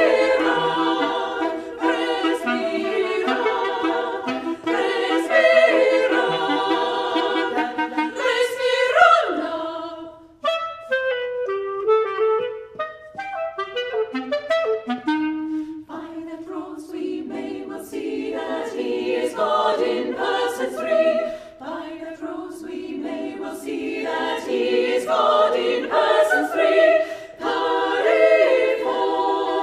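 Women's choir singing a slow carol with a clarinet. About ten seconds in the choir falls away and the clarinet plays a short passage on its own. The choir comes back in a few seconds later.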